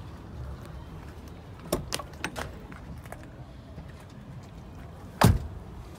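A Bentley Arnage's driver's door: a few sharp latch clicks about two seconds in as it is opened, then one heavy thud as it is shut near the end.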